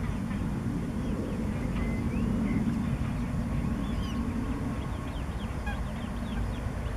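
Many short, high, thin bird calls, scattered through and busiest in the second half, over a steady low rumble.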